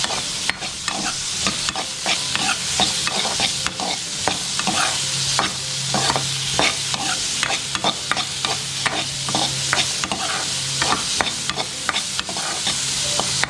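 Chopped onions sautéing in hot oil in a pan, sizzling steadily, while a spatula stirs them with frequent clicks and scrapes against the pan.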